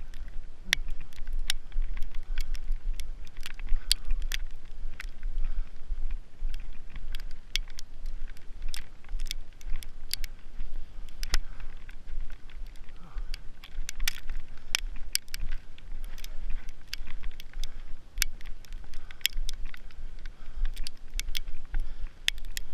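Footsteps in rubber boots crunching through snow: a dense, irregular crackle of sharp clicks over a constant low rumble.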